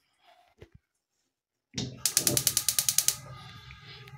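Gas cooker burner being lit: the spark igniter clicks rapidly, about ten clicks a second for about a second, and a steady low hiss follows as the burner runs.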